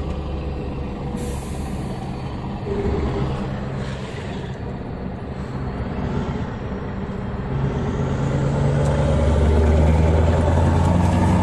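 Scania R620's V8 diesel engine heard from inside the cab, running as the truck rounds a roundabout, with a short hiss of air about a second in. From about eight seconds in the engine pulls harder and gets louder as the truck accelerates out, through its free-flow ('escape livre') exhaust.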